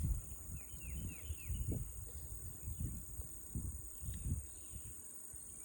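Steady high-pitched chorus of insects, crickets or similar, with a small bird giving four quick falling chirps about a second in. Uneven low rumbling runs underneath.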